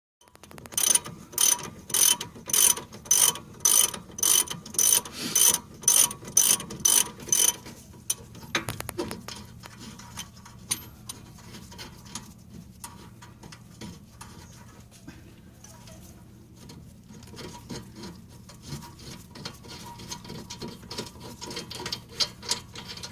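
Ratchet wrench clicking in quick strokes, about two or three a second, with a bright metallic ring. After about seven seconds it gives way to fainter, irregular clicks and tool handling.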